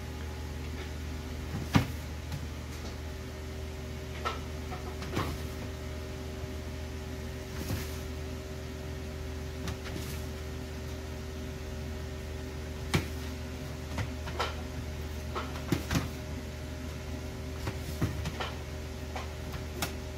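A metal spatula spreading sauce on a pizza base in a stainless-steel tray, with scattered sharp clicks and taps of metal on metal. Under it runs a steady low hum.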